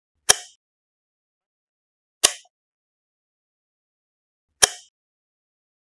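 Three sharp, bright hits, one about a quarter second in, one about two seconds later and one near four and a half seconds. Each dies away in a fraction of a second, with dead silence between them: edited horror sound-effect hits.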